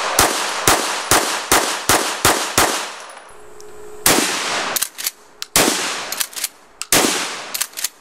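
Rapid handgun fire, about three shots a second for the first two and a half seconds. After a short pause, a pump-action shotgun fires about every second and a half, with the clack of the pump being worked between shots.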